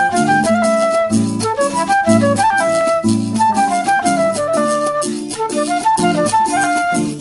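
Instrumental Colombian rumba criolla: tiples and guitars strum a brisk, even rhythm under a high melody line that steps up and down in quick notes.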